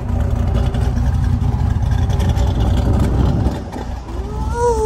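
Pontiac G8's LS V8 exhaust running at the tailpipes with a deep, steady rumble that drops away about three and a half seconds in. Near the end a short pitched sound glides up and down.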